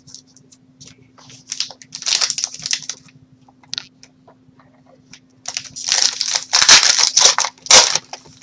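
Crinkling and tearing of a trading-card pack's wrapper being handled and opened by hand, in two spells of rustling, the second and louder starting about five and a half seconds in.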